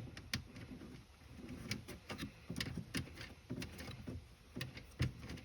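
Scattered light clicks and knocks of a wrench and the 8 mm bolts being worked by hand as a Porsche Cayman's tail-light housing is bolted back in loosely. The clicks come at irregular spacing, roughly one every half second to second.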